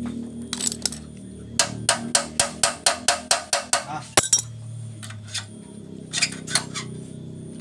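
Light metallic taps and clinks as a copper tube is worked and knocked against a steel frame. A quick run of about a dozen taps, about five a second, is followed by one sharp click and a few more taps near the end, over a low hum.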